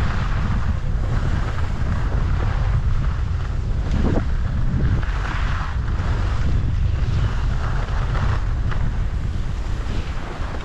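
Wind buffeting the microphone on a ski run downhill, a heavy steady rumble, with the hiss of skis on snow swelling and fading over it.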